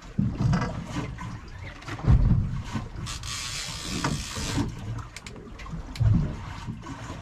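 Sea water slapping against the hull of a small boat in low thumps about every two seconds, with a stretch of rushing hiss a few seconds in.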